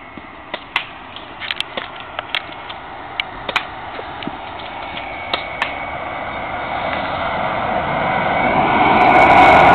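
Sharp clicks of airsoft BB guns firing, scattered irregularly through the first several seconds. From about six seconds in, the rumble of a passing vehicle swells steadily and is loud by the end.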